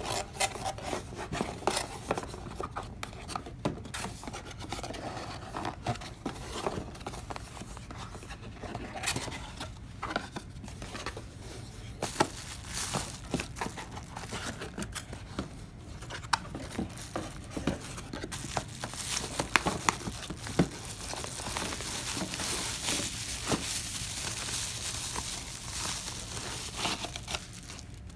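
Packaging crinkling and rustling as a camera lens is unwrapped and handled, with many small clicks and taps throughout and a denser stretch of rustling in the last part.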